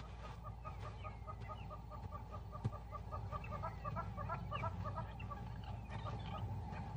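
A rapid, even run of short clucking animal calls, about four or five a second, turning more ragged and overlapping a few seconds in before stopping, over a steady low background.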